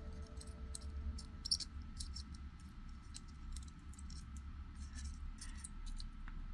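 Faint crackling of rosin flux boiling under a soldering iron as solder melts onto a lithium cell's tab on a power bank BMS board, in irregular sharp little clicks over a low steady hum.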